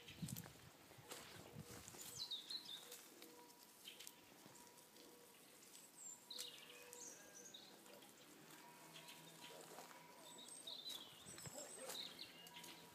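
Small birds chirping at intervals, faint, with scattered rustling and crackling in the dry leaves and undergrowth.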